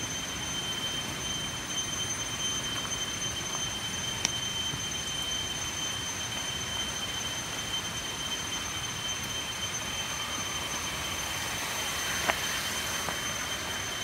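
Steady high-pitched insect drone, one even whine with a fainter note an octave above it, over a constant hiss. A couple of faint clicks from footsteps on loose stones.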